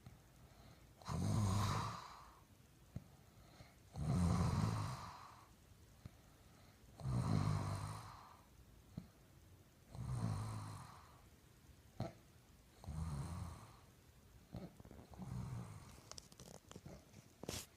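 Snoring in sleep: six low, rattling snores, one about every three seconds, the last one broken up and choppy.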